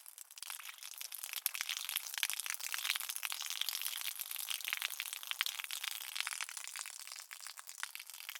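Water sound effect: a dense, steady crackle of many tiny pops and splashes, getting louder about a second and a half in, with no low rumble.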